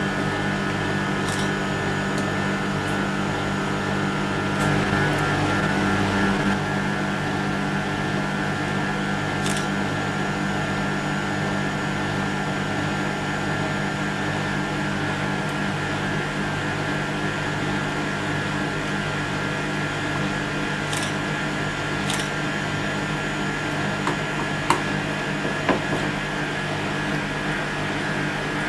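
Batch ice-cream freezer running steadily, its dasher pushing freshly churned banana ice cream out through the extraction door into a tub. A few light clicks sound near the end.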